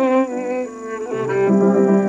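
Solo violin playing a slow melody: bowed, held notes that change pitch every half second or so.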